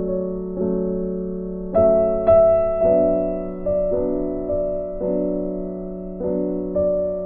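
Soft background piano music: gentle chords struck every half-second to a second, each left to fade.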